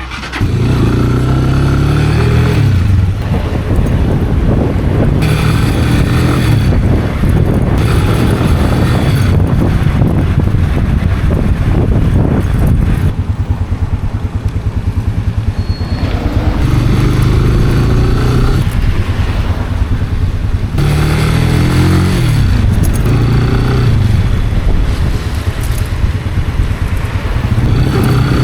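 Italika RC 250 motorcycle engine under way, revving up through the gears: its pitch climbs and drops back with each upshift several times, with steadier cruising in between. Strong wind noise on the microphone runs underneath.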